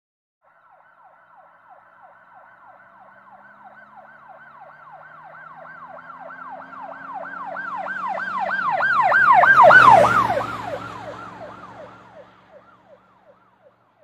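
Emergency vehicle siren in a fast yelp, about three to four sweeps a second, with engine noise beneath. It grows steadily louder to a peak about ten seconds in, drops in pitch as it passes, then fades away quickly: a vehicle driving past.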